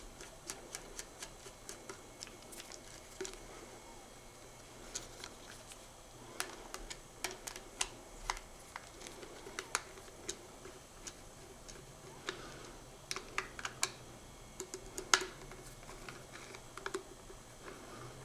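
Irregular light clicks and taps of a small screwdriver and screws on a laptop hard drive caddy as its four mounting screws are backed out, with one sharper click about fifteen seconds in.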